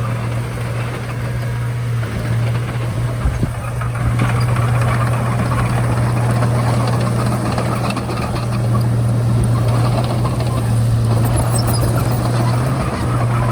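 Komatsu D31A crawler bulldozer's diesel engine running steadily under load, with a couple of brief knocks about three seconds in.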